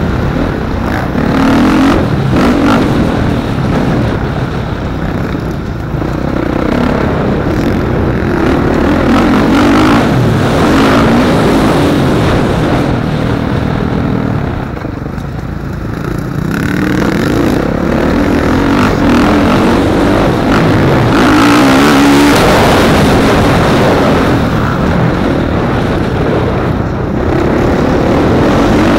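Motocross dirt bike engine heard from on board, revving up and down as the rider works the throttle along the track; it eases off briefly about halfway through, then picks up again.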